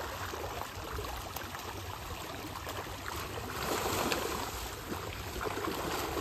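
Many fish thrashing at the surface of a pond in a feeding frenzy, a continuous splashing and churning of water that swells about four seconds in.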